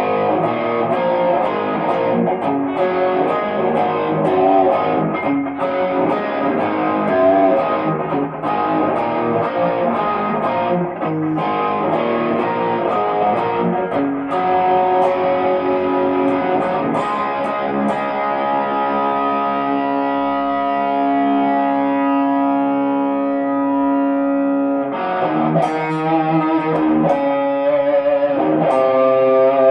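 Tokai Love Rock LS214 electric guitar played through an amp with some distortion. Busy picked phrases fill about the first half, then long ringing held chords, then wavering, bent or vibrato notes near the end.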